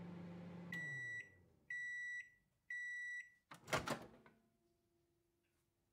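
Microwave oven hum winding down as the timer runs out, then three high beeps about a second apart, then a loud clunk as the door is opened.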